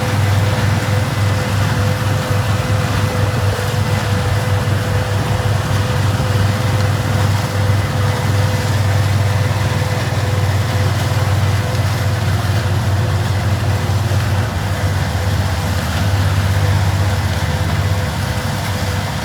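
Engine of vintage harvest machinery running steadily, with a low, even drone and a faint steady whine above it.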